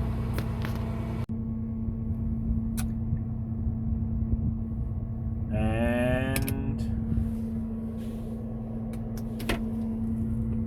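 Combine harvester running steadily: a low rumble with a constant hum, which drops out for an instant about a second in. A short pitched vocal sound about halfway through, and a few light clicks.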